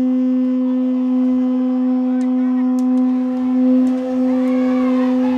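Conch-shell trumpet blown in one long, steady, unwavering note, with faint voices calling in the background near the end.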